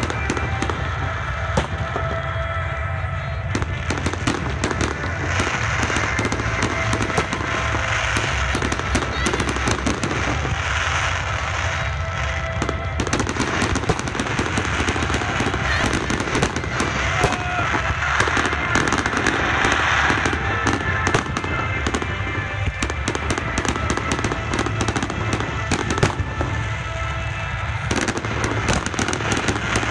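Fireworks display: aerial shells bursting in a rapid, irregular series of bangs, with stretches of dense crackling between them.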